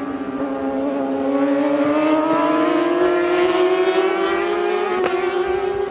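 Racing sport motorcycles running at high revs, their engine note climbing slowly and steadily in pitch as the bikes accelerate.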